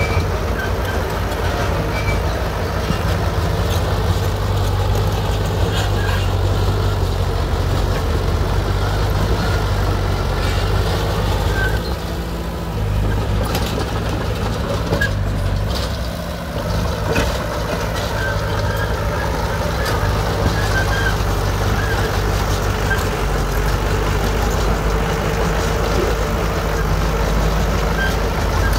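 Shantui DH17C2 bulldozer's diesel engine running steadily as the machine works, briefly quieter twice around the middle.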